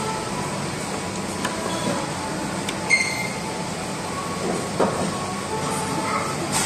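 Steady hum of a busy restaurant dining room, with faint distant voices. A sharp clink of tableware rings briefly about three seconds in, and a duller knock comes near five seconds.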